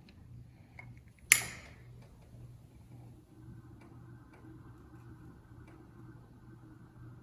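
A single sharp strike about a second in, with a short fading tail, as a candle is lit. Around it there is a faint steady hum with a soft, even ticking pulse and a few small clicks.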